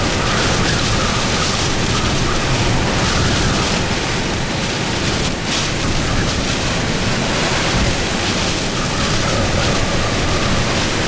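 Full-force winds of a hurricane's back eyewall blowing hard and steadily, a loud, dense rushing noise that swells and eases slightly.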